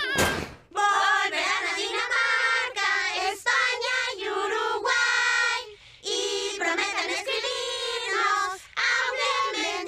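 Children's choir singing together in high voices, phrases of held notes with a few brief breaks, starting just under a second in.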